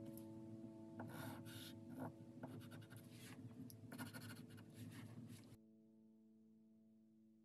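Rembrandt soft pastel stick scratching across Mungyo pastel paper in quick short strokes, stopping about five and a half seconds in.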